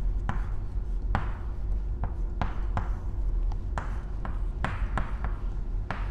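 Chalk writing on a chalkboard: a run of short sharp taps and scratches as the strokes go down, about two a second at an uneven pace.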